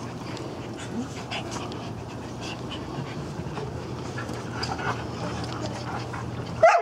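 A group of small dogs in a play yard makes faint whines and small cries over scattered light clicks and a steady low hum. A short, sharp, louder cry comes near the end.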